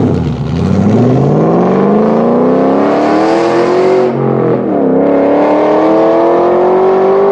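Ford Shelby GT500's supercharged 5.8-litre V8 accelerating hard through Stainless Works stainless headers, H-pipe and chambered-muffler catback exhaust, giving a deep, throaty note. The revs climb for about four seconds, fall sharply at an upshift, then climb again.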